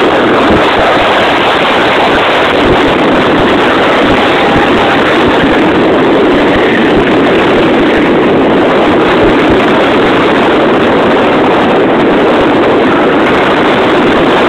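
Mazda RX-8's two-rotor rotary engine running, heard from inside the cabin as a loud, steady, rough rush with no clear rise or fall in pitch. The recording sits near full scale throughout.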